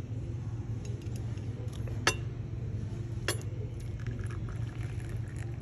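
Two sharp clinks about a second apart over a steady low hum.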